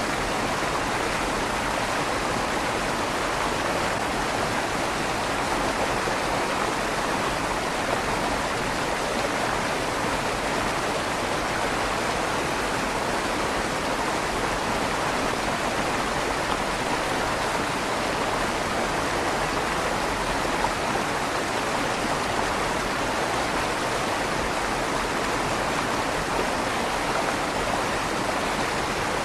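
River water flowing steadily through a stone tunnel under a bridge, a constant rushing with a slight echo off the tunnel walls.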